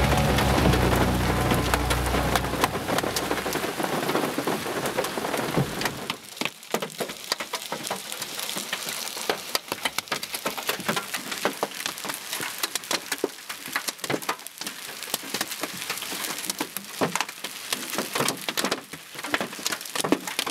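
Hailstones about 2–3 cm across pelting the car, heard from inside as many sharp, irregular clicks and knocks over a steady rain hiss. Music fades out over the first few seconds, before the hail takes over.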